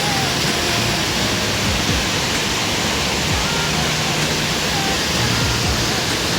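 Fast mountain stream water rushing over rocks, a steady dense noise of water without let-up.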